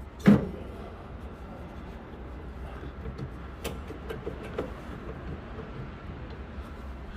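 A single sharp metal clack about a third of a second in, as the tractor's mechanical brake pedal is worked by hand, then a few faint clicks over a low steady hum.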